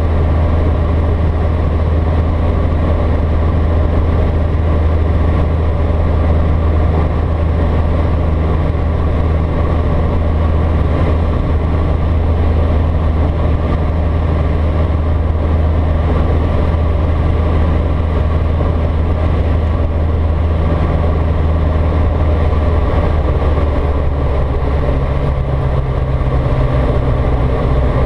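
Single-engine piston aeroplane's engine and propeller running steadily on approach to land, heard from inside the cockpit as a loud, even drone; the engine note changes about three seconds before the end.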